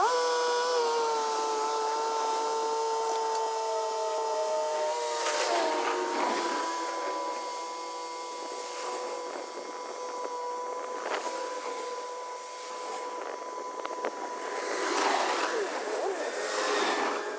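Yanmar F195 tractor running steadily while tilling with its rotary tiller: a steady mechanical whine with a few tones. It drops slightly in pitch about five seconds in, and louder swells of noise come and go, the strongest near the end.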